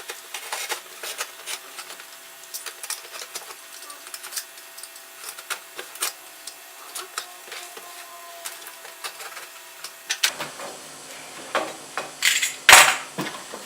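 A blade cutting through packing tape on a cardboard box, with quick scrapes and clicks. Near the end the box flaps are pulled open, and the loudest sound is a long rustle of cardboard.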